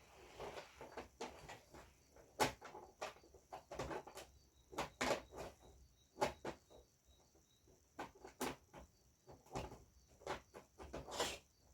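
Irregular clicks and taps from handling the panel parts of a 42-inch LED smart TV during a backlight LED repair, with a faint high chirring underneath.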